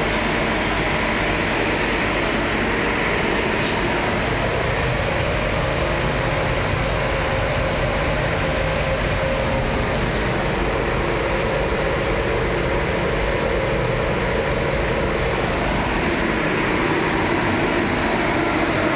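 Steady machine noise of a solid-fuel thermal oil boiler plant running, an even roar with a faint steady hum that grows slightly louder near the end.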